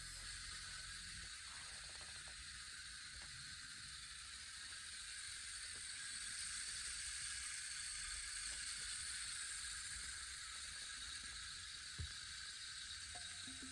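Manglid wood rain stick trickling, its filling pouring down inside in an even, rain-like rush that swells a little about halfway through, with a single faint click near the end.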